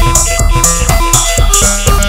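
Live techno from hardware synths and a sampler: a steady deep beat with bright hi-hat hiss about twice a second, under a line of short synth notes stepping up and down, played on an Arturia MicroBrute analog synthesizer.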